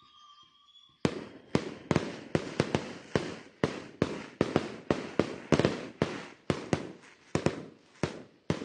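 Fireworks bursting in a rapid string: about two dozen sharp bangs, roughly three a second, beginning about a second in, each trailing off in a short rumble.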